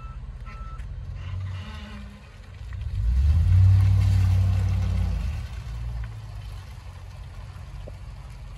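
2008 Ford F-350 truck's reversing alarm beeping a couple more times and stopping, then the engine swelling loudly as the truck pulls away, loudest a few seconds in before settling to a lower steady running.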